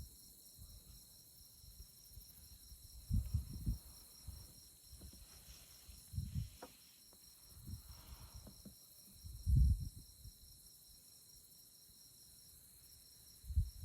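Night chorus of crickets and other insects: a steady high-pitched trill with a rapidly pulsing upper layer. Several brief low thumps break in, the loudest nearly ten seconds in.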